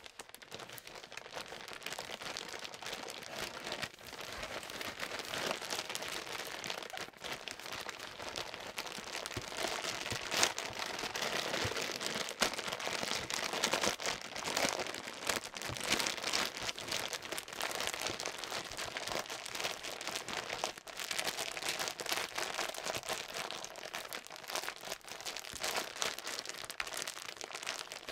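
Plastic grow bag crinkling and crunching continuously as gloved hands knead it, breaking up mycelium-colonized grain spawn and mixing it into the bulk substrate.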